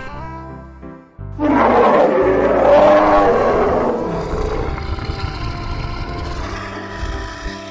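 A bear roaring once, a loud rough roar starting about a second and a half in and fading over about three seconds, over background music.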